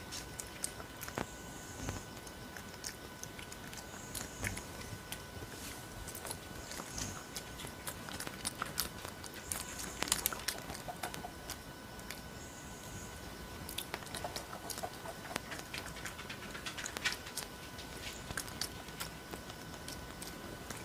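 Crab-eating macaque chewing and biting fruit close to the microphone: many irregular small sharp clicks and crunches of mouth and teeth, loudest about ten seconds in.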